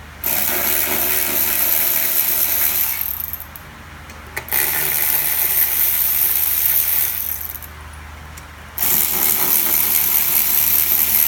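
A handheld power tool runs three times, each run about two and a half seconds long and starting abruptly, as it backs bolts out of a transfer case housing.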